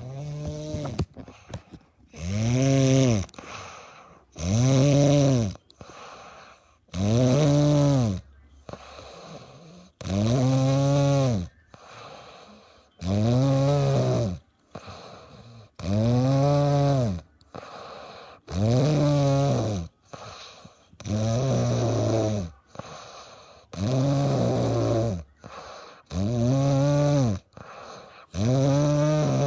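Loud, regular snoring: about eleven pitched snores, each lasting about a second and rising then falling in pitch, come every two and a half to three seconds, with quieter breaths between them.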